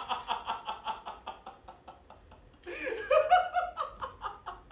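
A man laughing in two bouts of quick, rhythmic pulses; the second bout, starting about two and a half seconds in, is louder.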